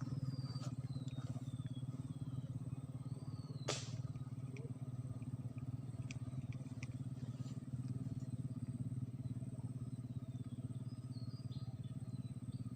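A small engine running steadily with a low, evenly pulsing drone. Faint high chirps sound over it, and there is a single sharp click about four seconds in.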